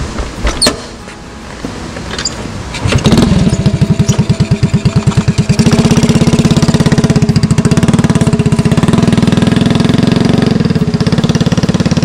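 Honda C70's small single-cylinder four-stroke engine being started: a few clicks, then it catches about three seconds in and runs with a quick, even pulsing beat, settling into a steady run about six seconds in.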